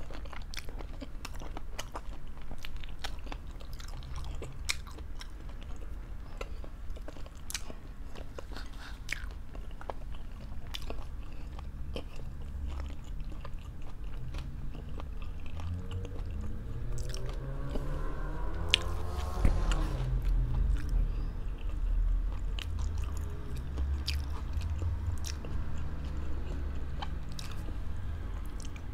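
A person chewing food, with many small mouth clicks and smacks. A short sound rising in pitch comes about two-thirds of the way through.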